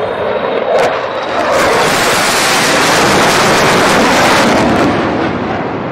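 F/A-18 fighter jet flying past overhead: a loud jet roar that swells about a second and a half in, holds, and eases off near the end.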